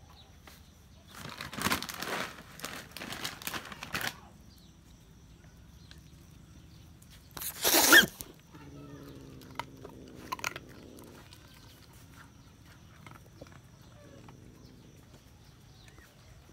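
Angry kitten hissing in several rough bursts over the first few seconds, then one loud, sharp hiss about eight seconds in, followed by a low, rough call for a couple of seconds.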